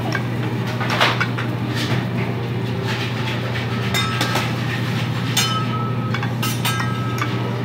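A metal spatula scraping and clicking on a steel teppanyaki griddle and plate as grilled vegetables are scooped up, with brief metallic squeaks about four and five and a half seconds in. A steady low hum runs underneath.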